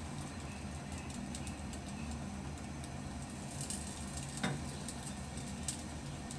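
A metal spatula and fork tapping and scraping a nonstick frying pan a few times while flipping small pancakes, over a steady low hum.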